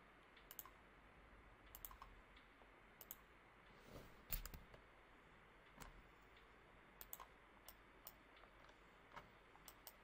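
Faint, irregular clicks of a computer mouse button, about a dozen over the span, some in quick pairs, over near-silent room tone.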